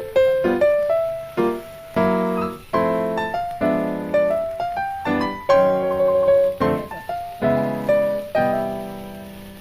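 Piano music: a melody of single notes over struck chords, each note dying away after it is played.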